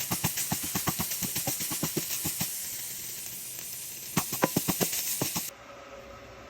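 Food frying in a hot pan: a loud sizzle full of rapid crackles and pops, cutting off suddenly about five and a half seconds in.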